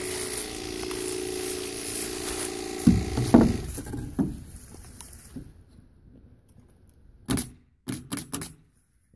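Knocks of a wooden trim board being handled and pushed into place, followed near the end by a few sharp clicks. A steady mechanical hum sits underneath at first and fades out by about the middle.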